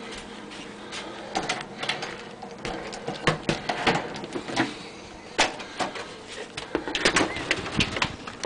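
A house door being opened and passed through, with irregular clicks and knocks of handling.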